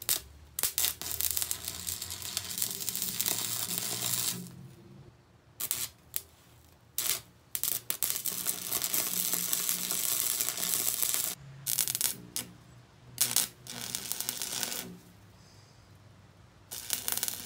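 Stick (arc) welder crackling and sizzling as tack welds are laid on angle iron and conduit. It comes in two longer runs of three to four seconds and several short bursts, with pauses between.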